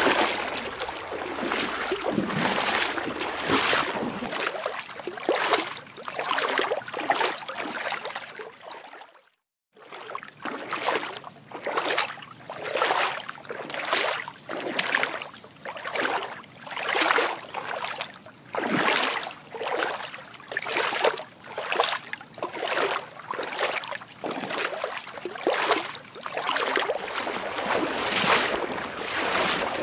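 Water swishing in even, rhythmic swells about once a second, like lapping or paddled water. It cuts out briefly to silence about nine seconds in, then carries on.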